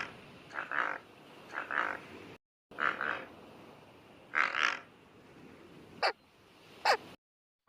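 Made-up creature calls: five short calls roughly a second apart, then two quick, sharply falling chirps near the end.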